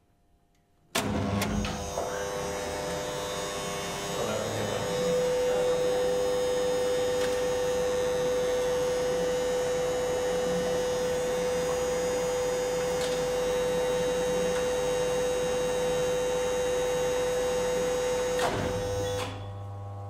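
Old geared elevator hoist machine set running from the control panel's up button. A clunk about a second in, then the motor and gearing run steadily, with a strong steady whine setting in after about four seconds. A knock near the end as the run stops, leaving a lower hum.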